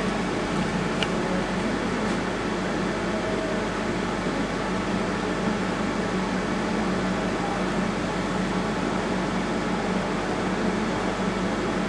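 Steady electric fan whir and machine hum, unchanging throughout, with a faint click about a second in.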